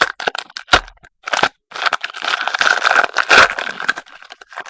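Foil trading-card pack wrapper being crinkled and torn open by hand, in dense crackly spells with short pauses, and a sharp knock about three quarters of a second in.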